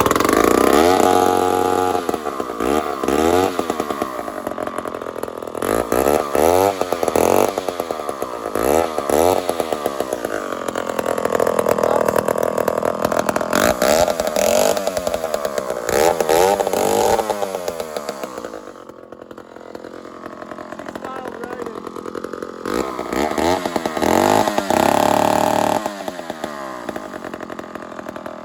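An old two-stroke chainsaw, just cold-started, running and repeatedly revved, its pitch rising and falling with each throttle blip. It drops to a lower, steadier run for a few seconds past the middle, is revved hard again, then settles back to a lower idle near the end.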